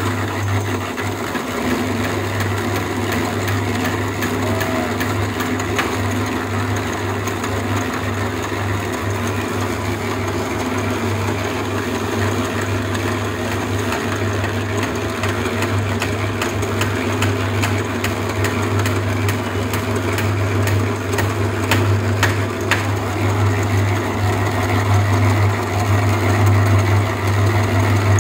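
Portable drum concrete mixer running on its electric motor, a steady low hum that does not let up, with a few sharp clicks about three quarters of the way through.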